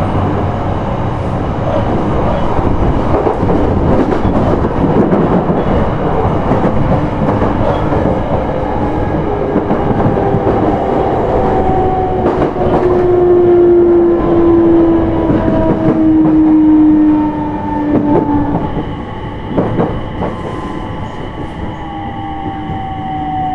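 JR East E721-series electric train heard from inside the car, running with wheel and rail clatter while its VVVF inverter motor whine slides down in pitch as it brakes, slowing for a station. The running noise eases off in the last few seconds.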